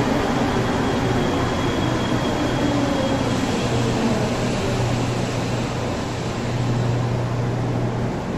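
Concarril NM-79 rubber-tyred metro train braking into a station and coming to a stop, with a whine that falls in pitch as it slows over a steady low hum.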